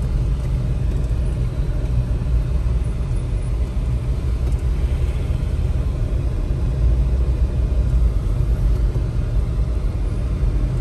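Steady low rumble of a two-door Jeep Wrangler JK, heard from inside the vehicle.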